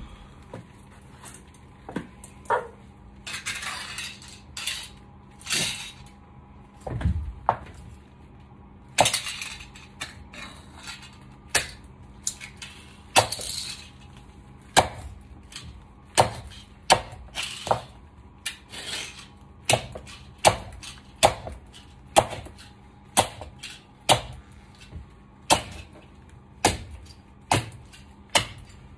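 Stiletto heels striking a tile floor and stamping on toy cars: a steady series of sharp heel clicks, a little over one a second, broken by several longer crunching scrapes of plastic and metal being crushed underfoot.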